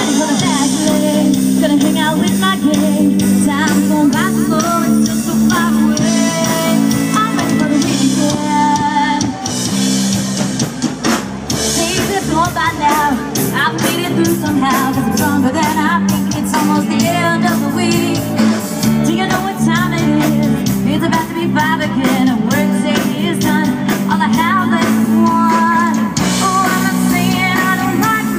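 Live country band playing through a stage PA: electric guitars, bass and drum kit, with a fiddle, a sung or played melody line wavering over a steady beat.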